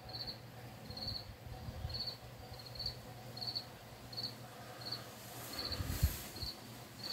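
A cricket chirping steadily, short chirps at one high pitch about once every three-quarters of a second, over a faint low hum. A low thump about six seconds in.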